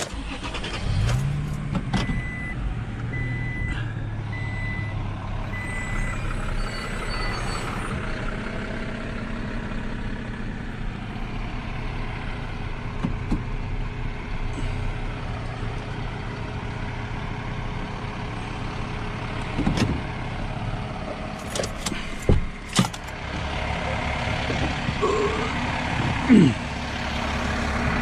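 Garbage truck's diesel engine running, with its reversing alarm beeping steadily for several seconds near the start. Several sharp metallic bangs come about two-thirds of the way through.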